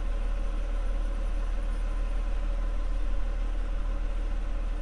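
A heavy engine idling steadily, a low rumble.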